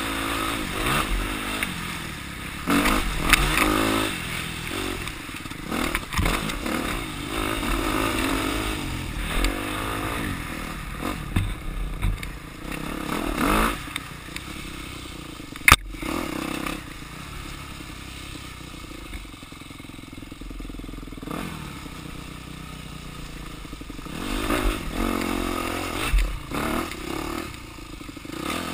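Off-road dirt bike engine heard from the rider's helmet, revving up and easing off again and again over a rough wooded trail, with clatter from the bike over the bumps. A single sharp knock cuts through about halfway, after which the engine runs more quietly and steadily for several seconds before picking up again near the end.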